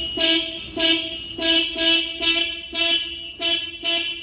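Takeuchi mini excavator's electric horn sounded in a quick series of short honks, about eight in four seconds, as a newly fitted horn button is pressed repeatedly. The horn is working again.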